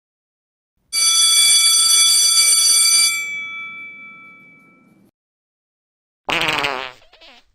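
Sound-effect clips: a bell-like ringing tone with many overtones comes in about a second in, holds steady for about two seconds, then fades away. Near the end a short, loud wavering sound that slides downward cuts in briefly.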